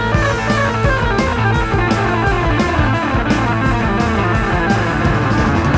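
Rock music with electric guitar and a steady beat, played from a vinyl record on a turntable fitted with a Sumiko Blue Point Special Evo-III cartridge.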